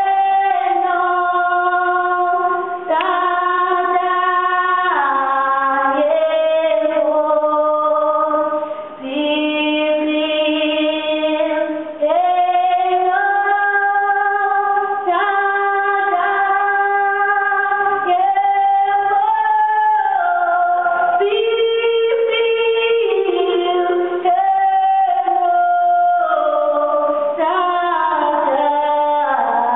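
Two female voices singing a slow song in harmony, unaccompanied, with long held notes.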